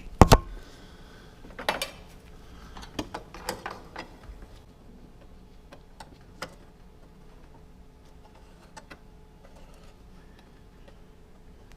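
Small metal parts and tools being handled, with a sharp clack just after the start, a few more knocks and clicks over the next few seconds, then only faint occasional ticks.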